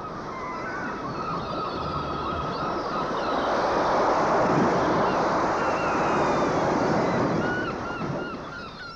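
Rushing water like surf, swelling louder toward the middle and easing off near the end, with birds calling again and again over it.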